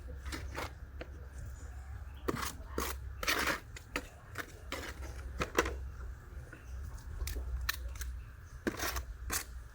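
A series of irregular sharp clicks and short scraping strokes, thickest about two to four seconds in, over a steady low hum.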